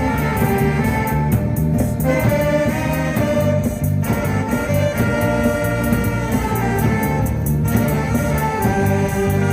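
Live band music: an instrumental piece with held melody notes over a steady, repeating bass line.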